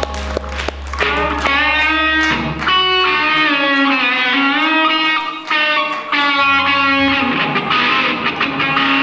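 Live rock music led by electric guitar, its melody gliding between notes over a strong bass that drops out partway through and comes back.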